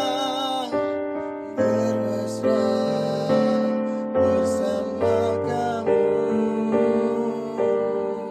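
Slow piano ballad accompaniment with chords struck evenly, a little more than once a second, and a man singing along with a wavering, held voice in places.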